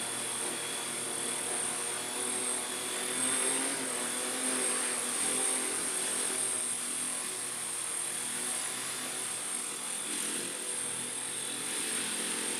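Twin electric rotors of a small 3D-printed bicopter running in flight, a steady whir with a constant high whine. The bicopter is flying with its electronic pitch stabilisation switched off.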